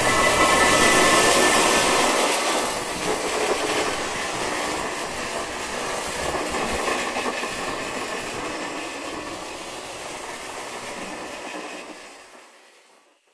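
Electric sizzle sound effect: a dense crackling hiss of electrical discharge, loudest at first, slowly weakening and then fading out near the end.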